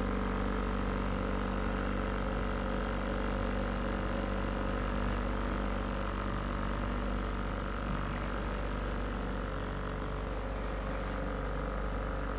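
Small wooden motorboat's engine running steadily while under way: a continuous even drone, over a steady hiss of water and wind.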